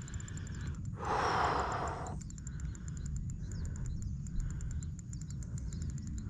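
A hooked tambaqui thrashing at the surface, giving a splash about a second long about a second in, over a steady low rumble of wind on the microphone.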